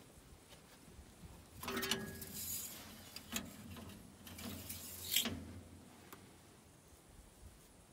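A metal dipstick being worked in and out of a dozer's oil filler tube to check the oil level after topping up, with the engine off: a few short scraping and clicking handling noises, the loudest a sharp click about five seconds in.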